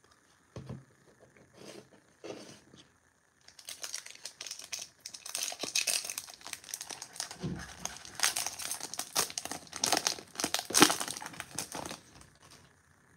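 Foil-lined wrapper of a Topps baseball card pack crinkling as it is torn open and the stack of cards slid out. A few light handling rustles come first; the crinkling starts about three seconds in and is densest near the end.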